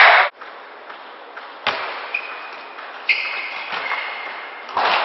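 Applause cuts off abruptly just after the start, then a table tennis rally: a celluloid ball ticks sharply off the bats and table a handful of times, about a second apart, some hits with a short ringing ping, in a large quiet hall.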